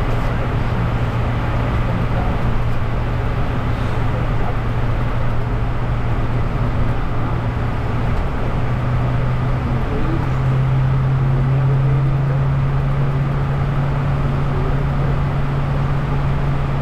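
Steady in-flight cockpit noise of a Bombardier Challenger 350 business jet: the rush of air and engine noise, with a steady low hum under it that shifts slightly higher about eight to ten seconds in.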